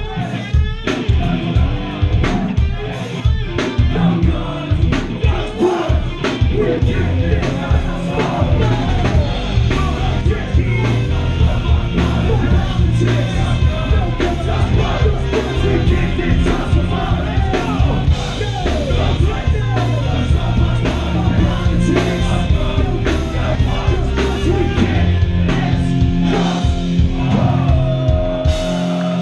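Live rock band playing loud: a drum kit, electric guitar and bass, with vocals over the top.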